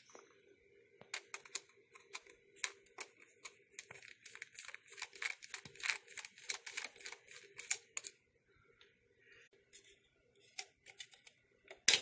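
Screwdriver with a T15 security Torx bit working the tamper-proof screw out from under a Ring doorbell's faceplate: a quick, irregular run of small metallic clicks, then a few more. Near the end there is one loud sharp click as the faceplate comes loose.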